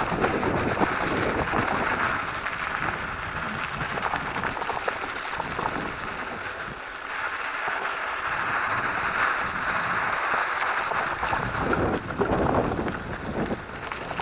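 Electric mountain bike rolling over loose gravel and sand: tyres crunching with a constant patter of small knocks and rattles. Wind buffets the microphone now and then.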